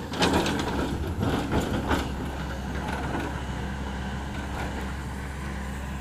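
Hyundai crawler excavator's diesel engine running steadily, with a burst of crunching and scraping from the bucket working in the soil during the first two seconds.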